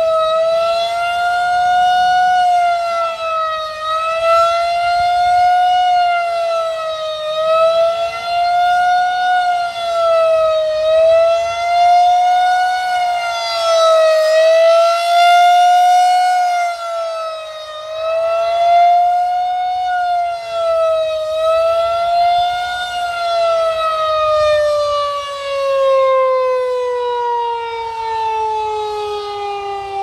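Pole-mounted outdoor warning siren sounding a loud, steady tone on its first test, wavering in pitch about every three and a half seconds. From about two-thirds of the way in it winds down, the pitch falling steadily.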